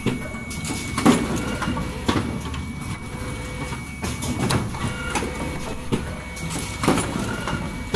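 Automatic cup-mask production line running: a steady machine hum with a thin steady tone, broken by the clunk of the pneumatic tool head and conveyor fixtures about every two seconds as each mask is processed.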